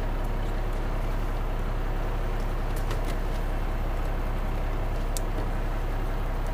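Lobster boat's engine running with a steady low rumble. A few sharp clicks sound about three and five seconds in.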